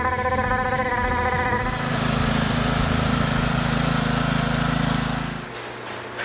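Gas-engine pressure washer running, with a noisy spray hiss. A wavering high tone holds for the first second or two, then a steady low engine drone comes in and fades out near the end.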